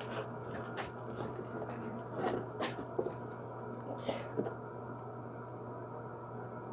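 Soft rustling and squishing of hands working a sticky cornstarch-and-pudding slime, with scattered light taps over the first few seconds and a brief hiss about four seconds in. After that only a steady low hum remains.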